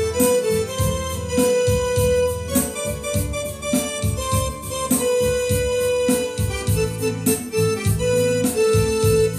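Electronic arranger keyboard played live: a sustained, ornamented melody line over a steady rhythmic accompaniment with a regular beat and a repeating bass pattern.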